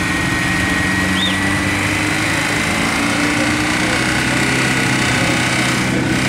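Off-road vehicle engine running steadily close by, its pitch holding nearly constant.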